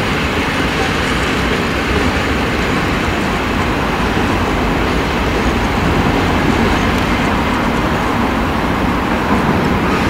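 Freight train of container wagons rolling away across the yard tracks, a steady even rumble and hiss without distinct wheel clicks.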